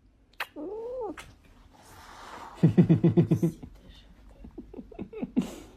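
A cat meows once, a rising-then-falling call, then gives a louder rapid pulsing call a couple of seconds later, followed by a few short chirping sounds.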